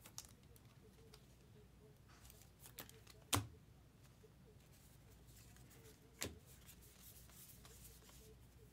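Trading cards being handled and flipped through: faint rustling with two sharp clicks about three seconds apart.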